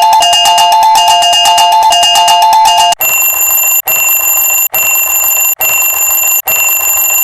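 Japanese railroad crossing warning bells, as used in a cartoon. First comes a fast, rapidly repeating two-tone ding-ding. About three seconds in it switches abruptly to a higher electronic tone that pulses a little more than once a second.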